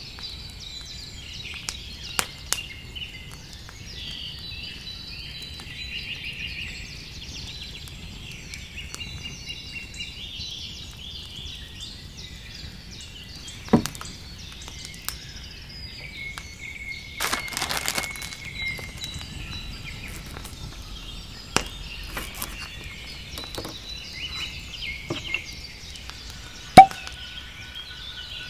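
Songbirds singing and chirping. A few scattered knocks and clicks and a brief rustling scrape around the middle come through it. A single sharp pop near the end is the loudest sound.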